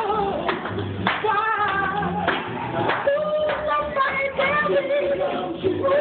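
A group of men singing together in harmony, with deep plucked notes from an upright double bass and hand claps keeping a steady beat.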